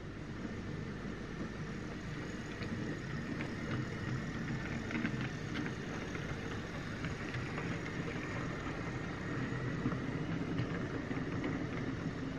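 OO gauge model Drummond 700 class locomotive running along the layout track with its luggage vans: a steady motor whir and rolling wheels, with light scattered clicks over the rail.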